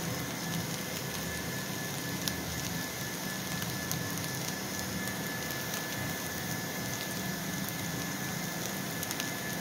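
Thin-sliced potatoes frying in mustard oil in a kadhai: a steady sizzle with faint scattered crackles, the potatoes about half fried with turmeric just stirred in.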